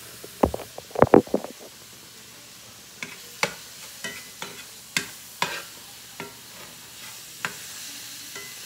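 Squash and onions frying in a cast iron skillet with a steady sizzle, while a spatula taps and scrapes against the pan in sharp, separate clicks. A quick cluster of louder knocks comes about half a second to a second and a half in, from handling close to the microphone.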